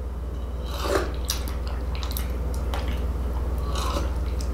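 A man sipping and swallowing tea from a cup: a scatter of short, wet sips and gulps. A steady low hum runs underneath.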